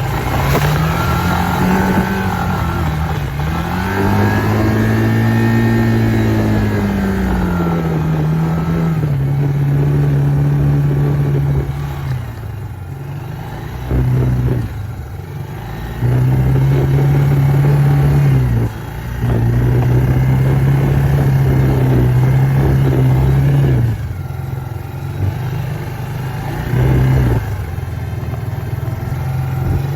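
Small off-road vehicle engine revving under throttle. Over the first several seconds the pitch swells up and falls back twice. After that it gives repeated held blips of a few seconds each, dropping back lower between them.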